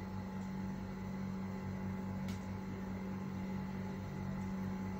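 Steady low electrical hum with a lower throb pulsing about four times a second, and one faint click a little over two seconds in.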